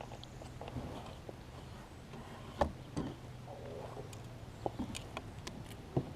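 Scattered light knocks and clicks, about half a dozen, the sharpest about two and a half seconds in, over a faint steady low hum.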